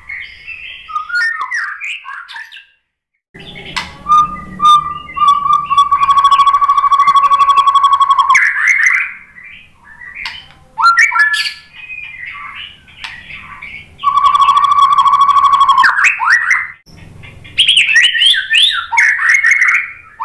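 White-rumped shama (murai batu) singing loud, varied whistled phrases, with two long, rapid, rattling trills of about two seconds each. There is a brief break about three seconds in.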